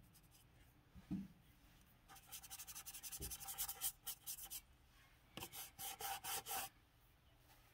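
Small paintbrush scrubbing quickly back and forth over the rough stucco of a dollhouse porch base, a fast run of scratchy strokes about two seconds in, then a shorter set of strokes about five and a half seconds in.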